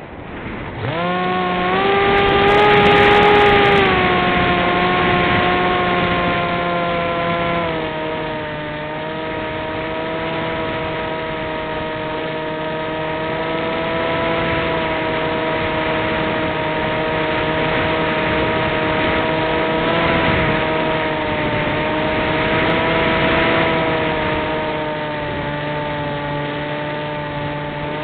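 RC airplane's motor and propeller heard from a camera mounted on the plane, with wind rushing past. The motor throttles up about a second in, rising quickly in pitch, eases a little lower about eight seconds in, then runs steadily.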